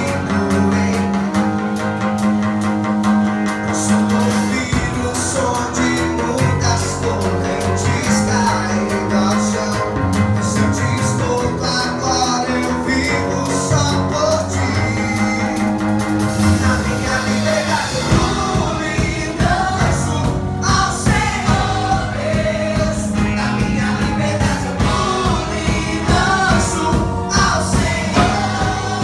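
Band music with singing. Held chords carry the first part, then about two-thirds of the way through a steady drum beat comes in and the arrangement grows fuller.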